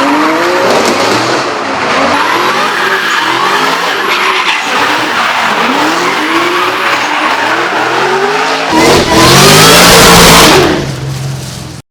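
Supercharged GM LS V8 in a Nissan S14 drift car revving in repeated rising sweeps over tyre squeal as it drifts. Near the end it gets suddenly loud, passing close, then fades away.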